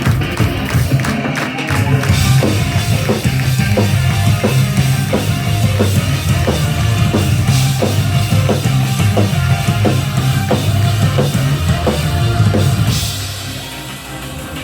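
Live rock band playing: drum kit beating a steady rhythm over a heavy bass line and guitar, dropping in level near the end.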